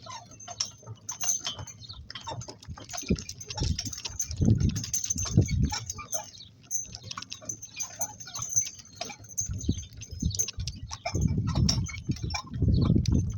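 Two donkeys pulling a work cart: an irregular run of small clicks and knocks from hooves, harness and cart, with two stretches of low rumble, one near the middle and one near the end.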